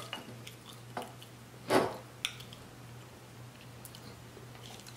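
Light handling sounds as hands work at a whole rotisserie chicken and pick up a knife: a few small clicks and one short soft rush of noise about two seconds in, over a steady low hum.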